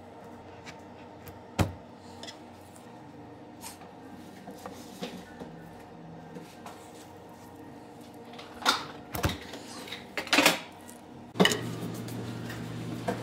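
Long knife cutting through a tart on a board: a sharp knock early, then several short knocks and scrapes as the blade works through the crust. A ceramic plate is set down on the counter about eleven seconds in, over a steady low hum.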